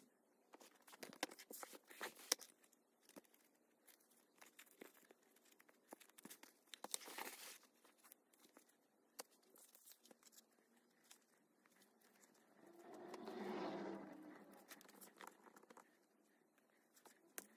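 Faint rustling and handling of leather and fur with scattered small clicks, and a brief scratchy rustle about seven seconds in. About two-thirds of the way through comes a louder, muffled, low-pitched swell lasting about two seconds.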